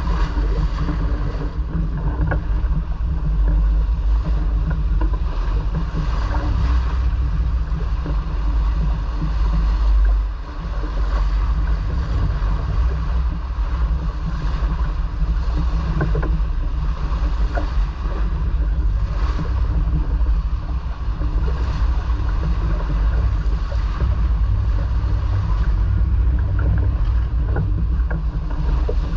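Steady wind buffeting the microphone aboard a sailboat under way, a heavy low rumble with a short lull about ten seconds in, over a wash of water along the hull.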